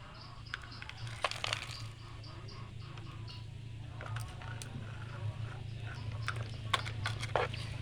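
Scattered scraping, crunching and clicking of sand being scooped and tipped with a child's plastic toy excavator and dump truck, over a steady low hum.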